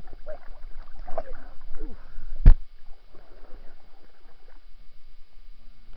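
Water sloshing and splashing as a dog moves and plays in a small inflatable pool, with one sharp knock about two and a half seconds in.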